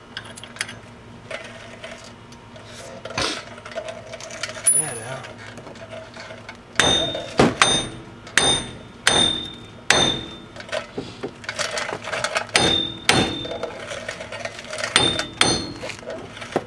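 Hammer blows on steel on a car's wheel hub assembly. Light clinks at first, then from about halfway through a dozen or so loud, irregular strikes, each ringing afterwards.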